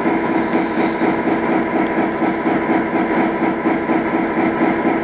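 Serbian Railways class 661 (EMD G16) diesel locomotive, its 16-cylinder two-stroke EMD 567 engine idling at standstill: a steady hum with a regular pulse.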